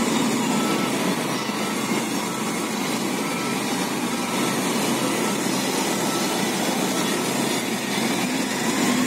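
Heavy diesel engines of a Hino dump truck and a wheel loader running steadily as the loaded truck starts to pull away, with faint short beeps repeating now and then.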